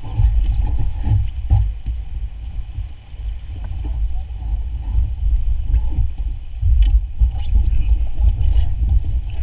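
Fast river water rushing around an inflatable raft, heard as a loud, unsteady low rumble with a faint hiss above it. A few light knocks sound now and then.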